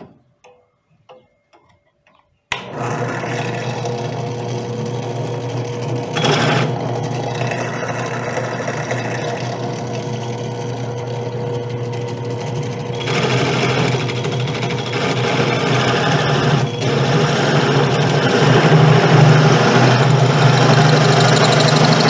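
Benchtop drill press switched on about two and a half seconds in, running steadily while a hole saw cuts a shallow ring into a wooden board to counterbore a screw hole. It grows louder about halfway through and again near the end as the saw bites into the wood.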